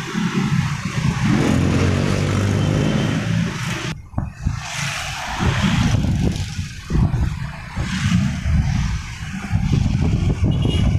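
Road traffic heard from a moving vehicle. An engine runs and speeds up over the first few seconds, then the sound breaks off abruptly about four seconds in and carries on as an uneven engine and road rumble.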